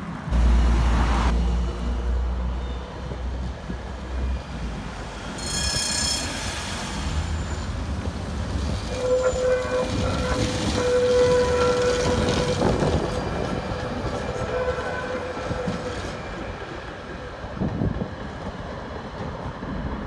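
A Tatra T3 tram passing close by on street track, with a steady whine through the middle of the pass that is loudest about eleven seconds in. A heavy low rumble fills the first few seconds, and a brief high ringing tone sounds about six seconds in.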